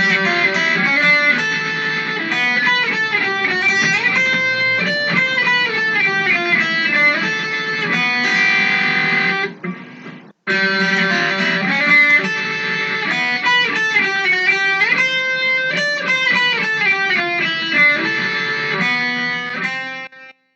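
Background music led by a plucked electric guitar melody. A phrase of about ten seconds plays twice, with a brief break between, and stops suddenly near the end.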